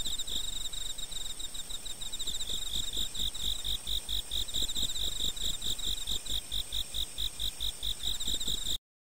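Loud insect song in a composed soundscape: a rapidly repeated high chirping, several pulses a second, with a low pulse under each chirp. It cuts off abruptly near the end.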